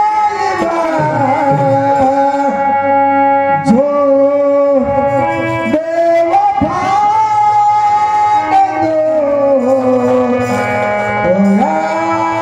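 Singing with instrumental accompaniment: a voice holds long notes that slide between pitches over a steady low drone.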